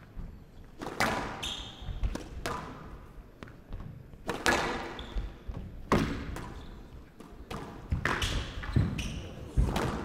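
Squash rally: the ball cracks off rackets and walls about once a second, each hit ringing briefly in the glass court, with short squeaks of court shoes on the wooden floor between hits.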